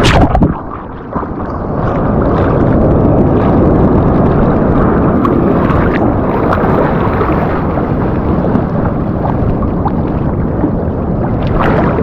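Wind buffeting the microphone at the seashore, a loud, steady rumble that dips briefly about half a second in.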